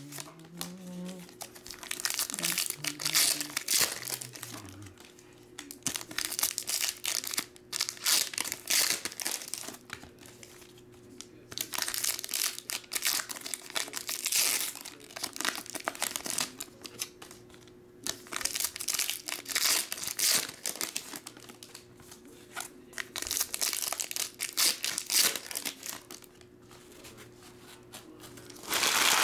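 Plastic wrappers of 2020-21 Donruss Optic basketball card packs being torn open and crinkled by hand, in bursts of a few seconds each with short pauses between them.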